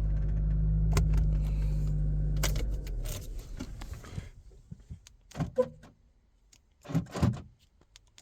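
Chevrolet Cruze engine idling steadily after being started with a newly programmed key, then switched off about two and a half seconds in, with sharp clicks. After that come scattered keys jangling and light knocks.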